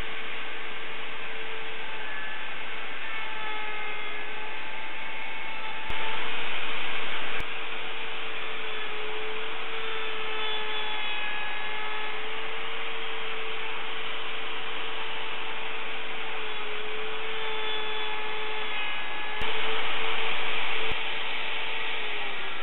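Bosch plunge router running at full speed with a steady high whine. Twice, for about a second and a half each, it gets louder and noisier as the spinning bit cuts into the wood of the mortise. Near the end it is switched off and the whine falls in pitch as the motor spins down.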